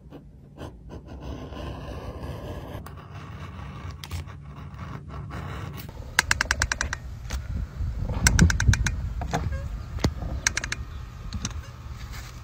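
A leather edge beveler shaving a strip off a leather edge, a soft scrape; then a caulk gun squeezed repeatedly, its trigger and plunger rod clicking in quick runs of about ten clicks a second, three or four times, as the caulk is pushed out.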